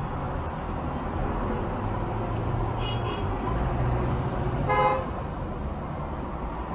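Steady road and engine rumble of a car driving in traffic, with one short car-horn toot about two-thirds of the way in.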